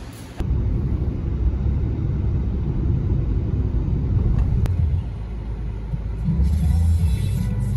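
Low, steady rumble of a car driving, heard from inside the cabin; it starts abruptly about half a second in.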